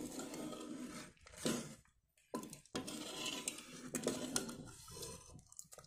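Metal ladle stirring watery mutton curry in a pressure cooker, scraping and clinking against the pot's sides, with a brief pause about two seconds in.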